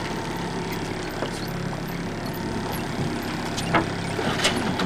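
Boat engine running steadily while the fishing boat trolls, with a few sharp clicks and knocks, the loudest near the end.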